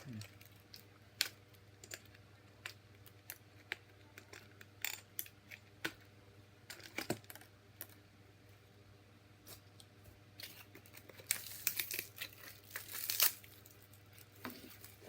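Scattered clicks and taps of a hard plastic action figure and its parts being handled, with a denser stretch of crinkling and rustling packaging near the end.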